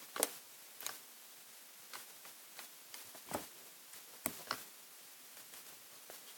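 Faint scattered clicks and taps from handling a card and sticky tape. About four seconds in there are two sharp ticks close together as a strip of clear tape is torn off on a desk tape dispenser's cutter.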